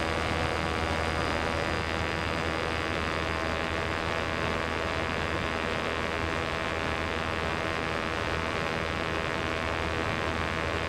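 Electric motor and E-Props propeller of a Minifox electric microlight running steadily in flight. A smooth hum of many even tones over a rushing hiss, with a faint high whine.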